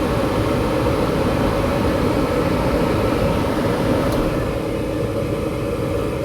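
Gas furnace's exhaust vent (draft inducer) motor running with a steady hum, in the furnace's start-up sequence before the burners light.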